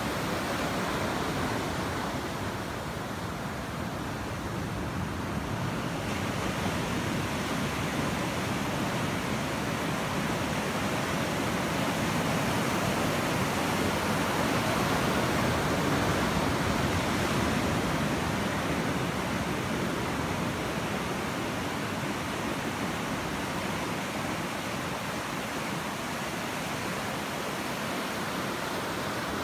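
Ocean surf breaking and washing up a sandy beach: a steady rush of water that swells a little about halfway through.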